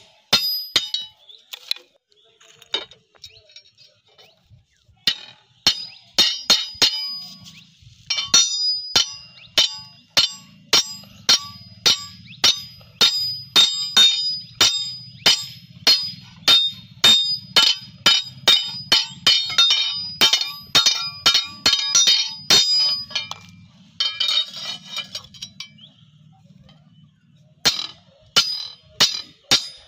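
Hammer tapping a small steel punch to seat an iron handle on a billhook's tang over a small anvil: sharp, ringing metallic clinks. A few scattered blows come first, then a steady run of about two to three a second, a short pause near the end, and more blows after it.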